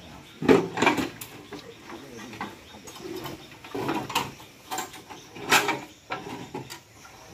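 Scattered metal clanks and rattles from a power tiller's handlebars and frame being moved by hand, about one knock a second, with no engine running.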